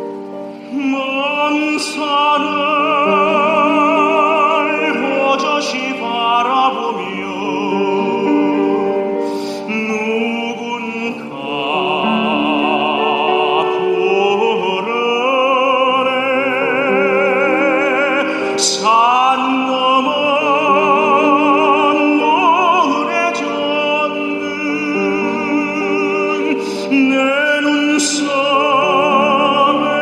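Background music: operatic singing, a voice holding long notes with wide vibrato over sustained accompaniment.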